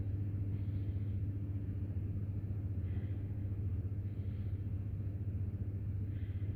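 Steady low background hum, with a few faint, brief higher sounds scattered through it.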